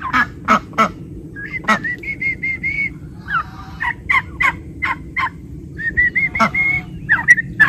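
Young poultry calling in a pen of turkey poults, ducks and a goose: two runs of short, high, evenly spaced peeps, about two seconds in and again about six seconds in, among scattered short sharp calls.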